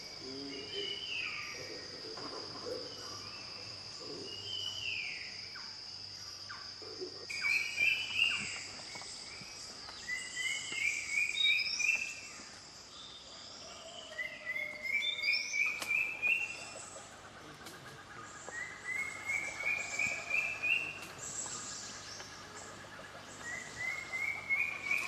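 Forest birds calling, with one bird repeating a quick run of short notes that climbs in pitch, about every four seconds. A steady high insect buzz runs under the first seven seconds, then stops.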